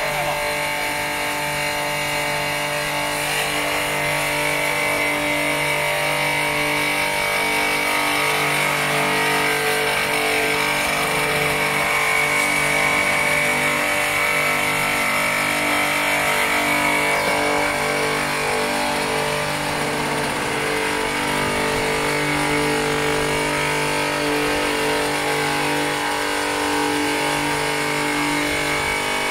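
Double-sided plate edge chamfering machine (GCM R3T) running steadily, its electric motors driving the cutter heads as a steel plate feeds through under the pressure roller. Steady machine noise with a high whine that is strongest in the middle stretch.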